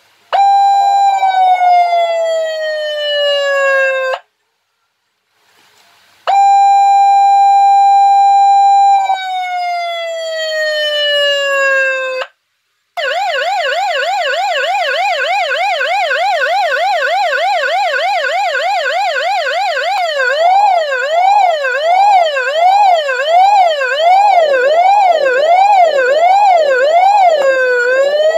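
Electronic siren of a Hitone Boss MPA-75 ambulance PA system cycling through its tones: a held tone that drops in pitch, a pause, another held tone that drops away, then after a short break a fast warbling yelp that slows into a wider up-and-down wail near the end.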